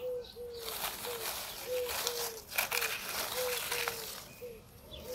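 A dove cooing in repeated three-note phrases, one phrase about every second and a half to two seconds, over a steady outdoor hiss.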